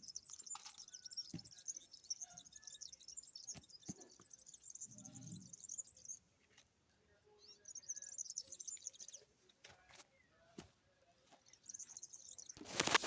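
Small birds chirping in a dense, high-pitched chatter that comes in spells and breaks off for a couple of seconds in the middle, with a few scattered clicks. A loud rustling rush comes in near the end.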